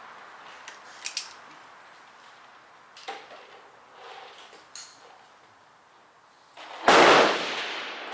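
A few small metallic clicks and knocks, then about seven seconds in a single loud revolver shot: a .44 Russian load fired from a Bisley-style .44 Special single-action revolver, its report echoing away over about a second.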